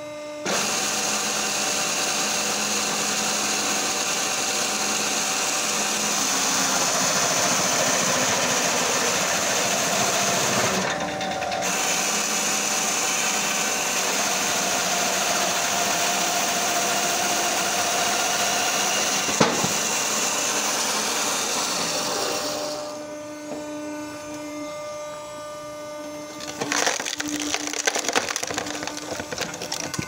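Chainsaw bar of a homemade firewood processor cutting through a thick log for about twenty seconds, pausing briefly about eleven seconds in. After the cut the machine's motor and hydraulics hum steadily, and irregular knocking and rattling starts again near the end.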